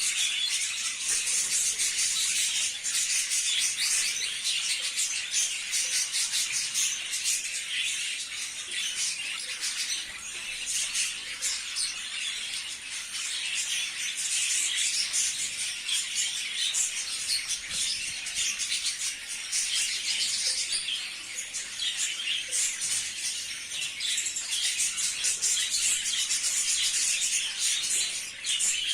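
A flock of budgerigars chattering and warbling without pause, a dense mass of overlapping high chirps.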